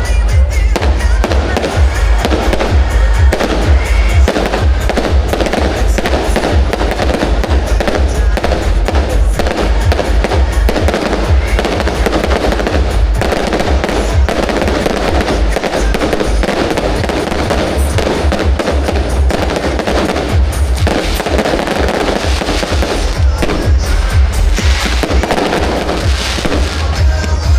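Fireworks display set to show music, with dense, continuous bangs and crackling that never let up.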